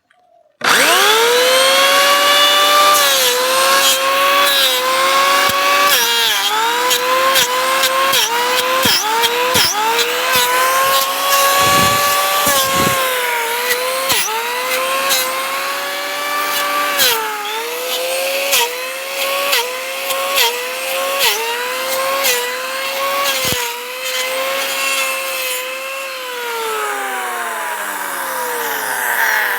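Electric wood planer running up to speed, its motor whine dipping in pitch again and again as it bites into the wood and recovering between cuts, over a rasping cutting noise with sharp clicks. Near the end the whine falls steadily in pitch as the motor winds down.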